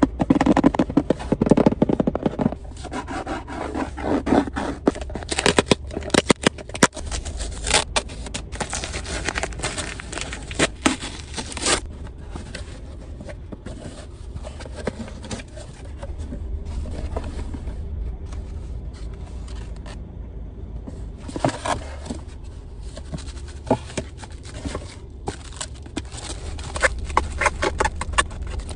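A cardboard parcel being opened by hand: irregular scraping, tearing and crackling of cardboard, tape and plastic wrapping, busiest in the first dozen seconds and again near the end, over a low steady hum.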